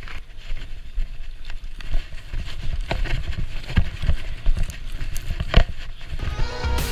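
Skis scraping and chattering down a slope of chopped-up, tracked-out snow, with irregular sharp knocks as they hit clumps over a low rumble. Music comes in near the end.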